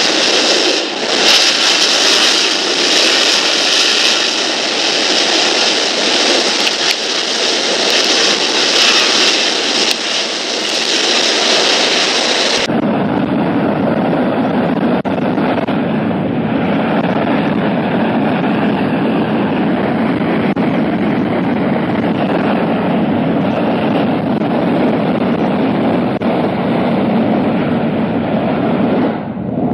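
General Electric J79-11B turbojet running in afterburner, a steady, loud, hissing blast. About 13 seconds in the sound cuts abruptly to the running engine heard from farther off, outside the test building: duller and lower, with much less hiss.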